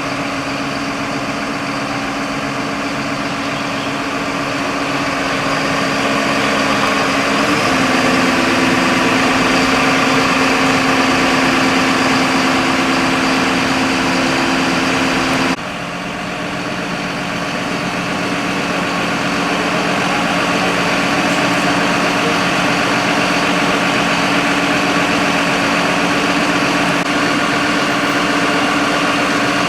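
Fire truck's diesel engine running steadily at the scene with a low, even hum. About seven seconds in, the revs step up slightly. About halfway through, the sound breaks off abruptly and comes back at a slightly lower steady pitch.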